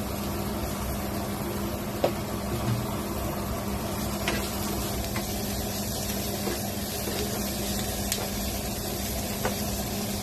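Sliced onions and curry leaves frying in oil in a nonstick pan, a steady sizzle over a low hum, with a few sharp clicks of the spatula against the pan as they are stirred.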